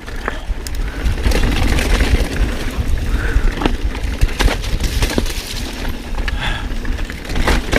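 Mountain bike riding over rough dirt trail: a steady rumble of tyres and wind on the microphone, with frequent sharp knocks and rattles as the bike hits rocks and roots.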